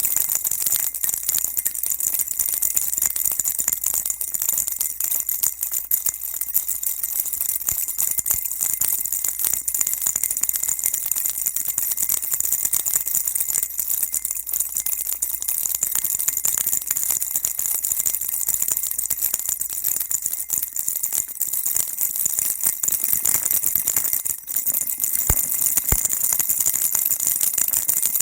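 Baby rattle shaken continuously, a steady dense stream of small bright clicks and jingles.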